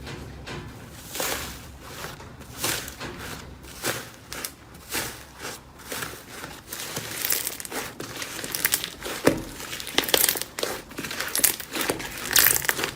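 Slime being squeezed and worked by hand, giving irregular crinkling crackles and pops that come faster and louder in the second half.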